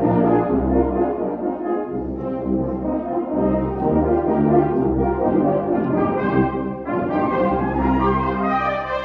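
Full concert band playing, brass to the fore: held brass chords over sustained low bass notes that change every second or so.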